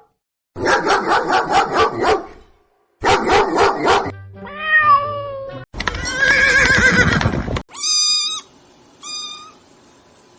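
A string of separate animal calls, one after another with short silences between: two calls that pulse rapidly, a call that glides up and down in pitch, a longer rasping call, and two short high calls near the end.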